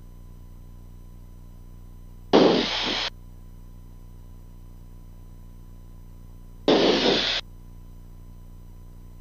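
Two short bursts of radio static, each about three-quarters of a second, switch on and off abruptly over the cockpit headset audio. Beneath them is a steady low hum from the Cirrus SR22's engine at taxi power.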